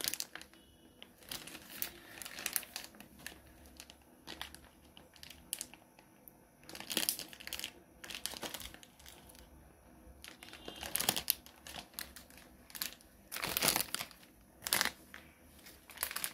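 Plastic wrapper of a spaghetti packet crinkling in irregular bursts as it is handled.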